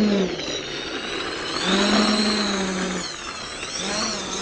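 Electric ducted fan of a Dynam Meteor V3 RC jet, a 12-blade 70mm fan on a Detrum 2600KV brushless motor, whining in throttle bursts: one dying off just after the start, another about one and a half seconds in that lasts a little over a second, and a short one near the end.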